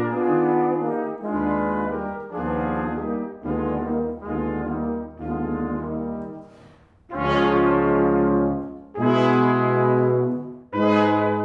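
Brass quintet of two trumpets, French horn, trombone and tuba playing a chamber piece: a run of phrased chords, a brief break about six and a half seconds in, then three loud sustained chords with short gaps between them.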